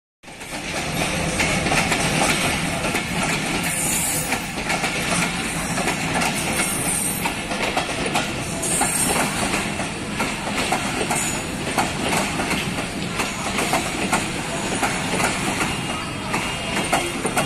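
Passenger train coaches rolling past at close range, with the wheels clicking and clattering over the rail joints and a few brief high-pitched squeals.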